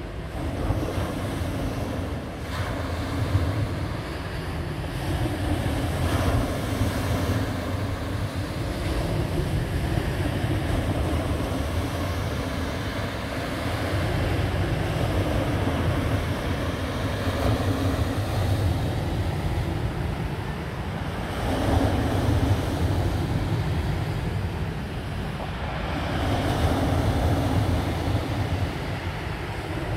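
Sea waves breaking and washing over a shingle beach, swelling and falling back every few seconds, with wind rumbling on the microphone.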